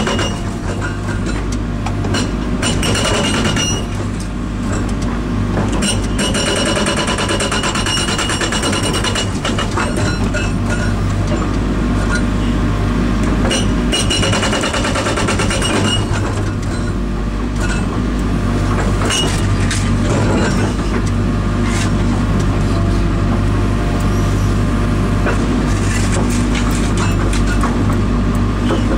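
INDECO hydraulic breaker hammering in several bursts of rapid blows, over the steady running of the carrier machine's engine, which is throttled back to about half to limit the oil flow to the hammer.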